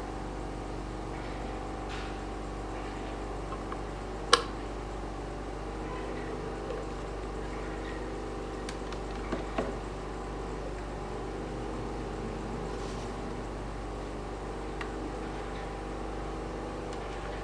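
Small DC motor of a homemade table fan running steadily with a hum, with a sharp click about four seconds in and a couple of faint knocks later.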